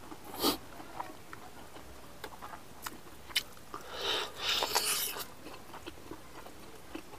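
Close-up mouth sounds of a man eating rice with his fingers off a banana leaf: scattered clicks and smacks, then a stretch of louder chewing about four seconds in.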